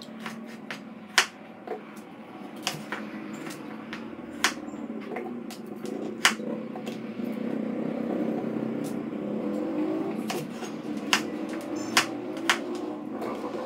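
A kitchen knife slicing a carrot into rounds, each cut ending in a sharp tap on a plastic chopping board, irregularly about one or two a second, over a steady background hum.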